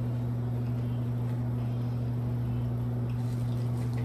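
A steady low hum with a fainter, higher tone above it.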